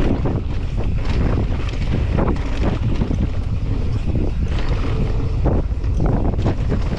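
Wind buffeting the microphone during a fast downhill mountain-bike descent, over irregular crunching and clattering from the tyres and bike on a loose dirt-and-gravel trail.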